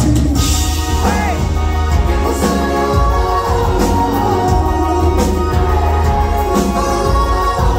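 Live indie rock band playing loud: drums, electric guitar, keyboard and a heavy low bass, which come crashing back in at the start after a thinner sung passage.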